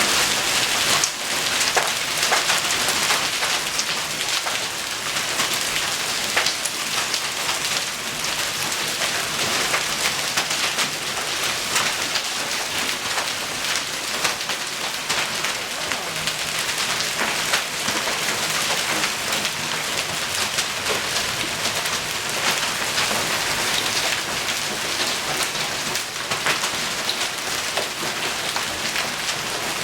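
Heavy rain and hail falling hard in a dense, steady hiss, broken by many sharp individual strikes of hailstones hitting hard surfaces.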